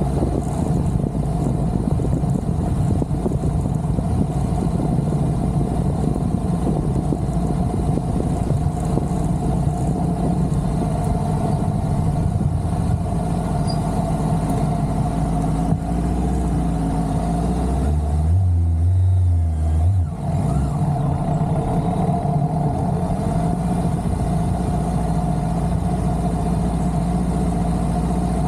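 Motorcycle engine running steadily throughout. Its pitch shifts between about 16 and 20 seconds in, with a strong low drone that drops away suddenly at about 20 seconds, then the engine settles back to a steady note.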